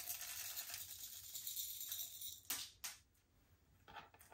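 Slime being worked and mixed by hand, with a dense crackling rush for about two and a half seconds, then a few separate sharp clicks and pops.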